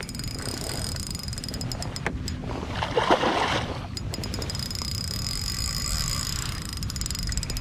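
A small spinning reel buzzing with rapid fine clicks while a fish is played on light tackle, broken about three seconds in by a louder splash of the fish at the surface.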